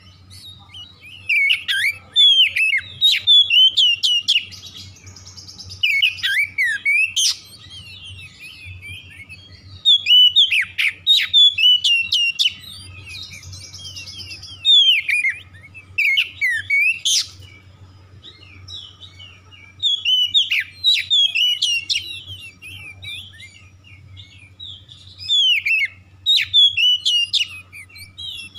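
Oriental magpie-robin singing a loud, varied song of quick gliding whistles and chirps, in about six phrases a few seconds apart, with quieter buzzy notes between them.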